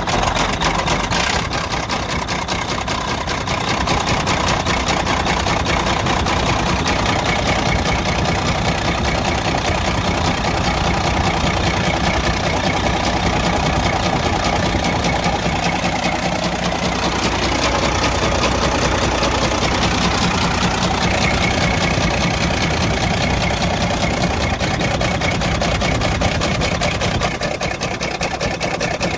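Detroit DD15 inline-six diesel engine running with a loud, steady, rapid knock: the sign of major internal engine damage.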